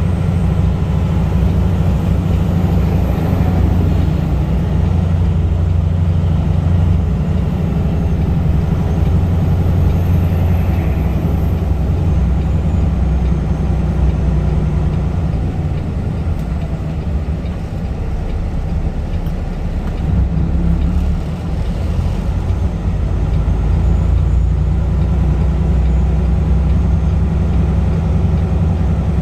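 Peterbilt 579 heavy truck's diesel engine running steadily as the truck drives, a deep drone heard from inside the cab; it eases off briefly about two-thirds of the way through, then picks back up.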